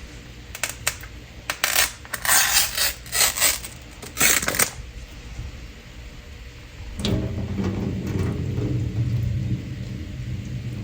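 Metal utensils clinking against dishes, a quick run of sharp clinks over the first few seconds. After that comes a steady low rumbling noise from about seven seconds in.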